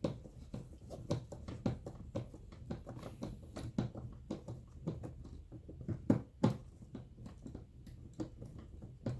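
Irregular light clicks and knocks of hands and a tool working on a massage chair's armrest while it is fitted and screwed to the chair frame.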